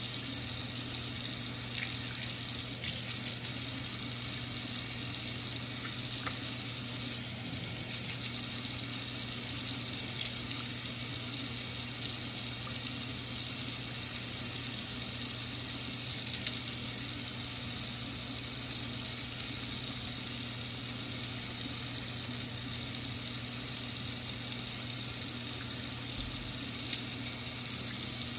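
Kitchen faucet running a steady stream into a stainless steel sink, the water splashing over raw chicken pieces as they are rinsed by hand.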